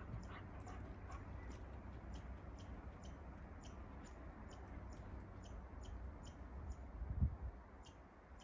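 Quiet spruce-forest ambience on a walk: a steady low rumble under a regular run of faint high ticks, about three a second. A dull low thump comes about seven seconds in.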